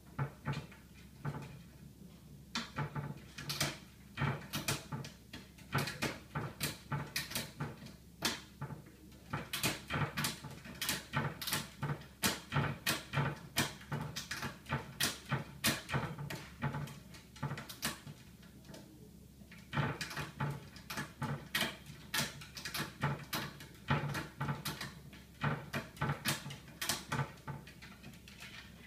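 Kitchen cabinet door clacking against its childproof latch as an Italian Greyhound works at it. The knocks are irregular, two or three a second, with two short pauses.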